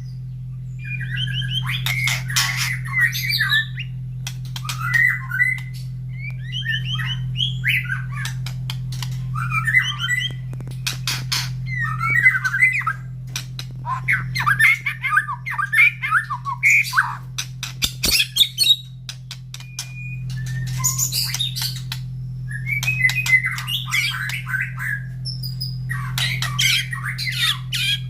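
White-rumped shama singing in repeated bursts of varied whistled and harsh phrases with short pauses between them. A steady low hum runs underneath.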